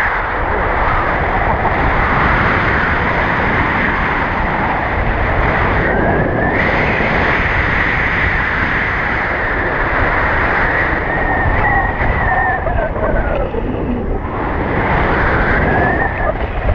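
Loud, steady wind noise rushing over the microphone of a pole-mounted camera on a paraglider in flight. In the second half a faint whistle bends up and down in pitch a few times.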